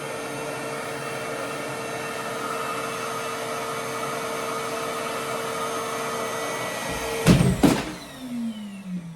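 Reverse-air hair dryer running with a steady, vacuum-like suction noise and whine. About seven seconds in come two loud knocks as the unit is pulled and its plug comes out, and the motor then winds down in a falling tone.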